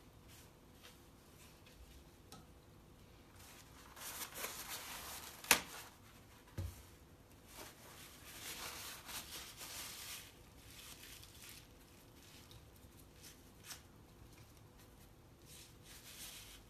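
Faint handling noises of watercolour painting at a desk: short rustling and scraping stretches, a sharp tap about five and a half seconds in and a soft knock a second later.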